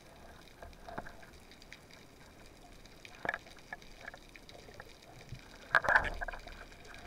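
Underwater recording: a faint crackling hiss with scattered clicks and knocks, and a louder cluster of clicks about six seconds in.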